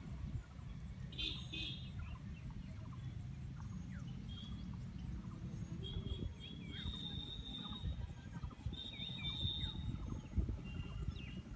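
Birds calling outdoors: several short, high, thin calls and chirps, over a steady low rumble.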